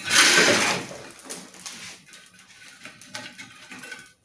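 Metal shovel scraping and dragging hot embers across the ash-covered brick floor of a parrilla, moving coals under the grill to raise the heat. A loud scrape in the first second, then quieter rough scraping and rustling of coals.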